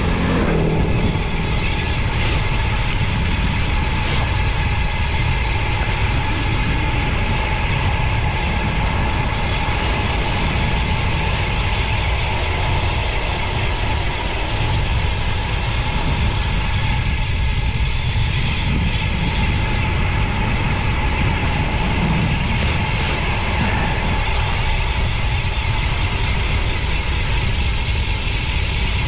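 Steady, loud wind noise over the camera microphone of a road bike descending at speed, heavy low rumble with no letup.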